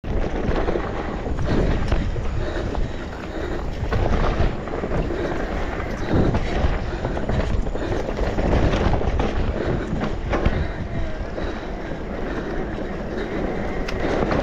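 Continuous rumble and rattle of an electric mountain bike riding a rough dirt trail, with wind buffeting the microphone and scattered clicks and knocks from the bike over the terrain.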